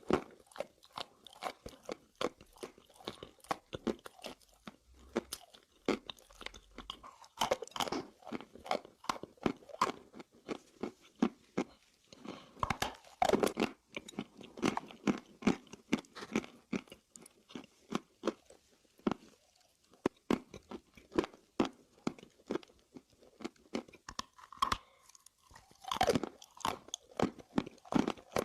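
A person biting and chewing hard, chalky mineral sticks, a rapid run of crisp crunches with heavier bouts of chewing now and then.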